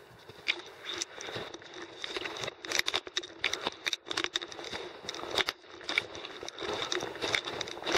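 Irregular crunching and crackling of a climber's steps on loose ground, mixed with rustling.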